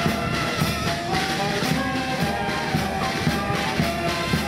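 Brass band playing: saxophones, trumpets and a sousaphone carrying a melody over a steady bass-drum beat.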